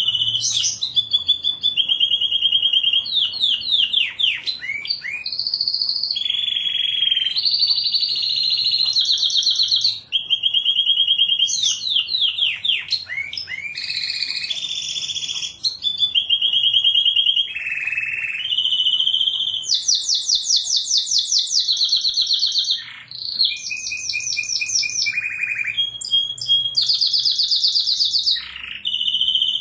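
Domestic canary singing a continuous song made of rapid trills of repeated notes. Each trill is held a second or two before the bird switches to another, and the trills are broken by quick downward-sweeping notes.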